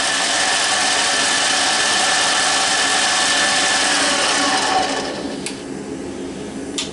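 Harbor Freight mini lathe running at full speed in low gear, a steady mechanical whir with the whine of its gears. About five seconds in the sound drops off to a quieter hum, followed by a few sharp clicks.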